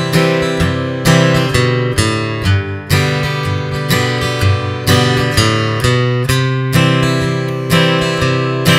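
Acoustic guitar strummed in a steady rhythm, its chords changing, with single bass notes picked to walk from one chord to the next.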